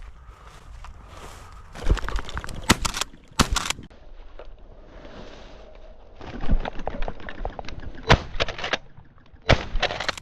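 Pump-action 20-gauge shotgun firing at a flushed pheasant: several sharp, loud reports spread across the seconds, amid clattering and rustling in the cover.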